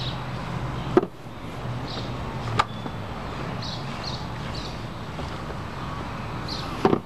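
Steady outdoor background noise with a low hum. A sharp click about a second in and another at two and a half seconds, with a few faint high chirps in between.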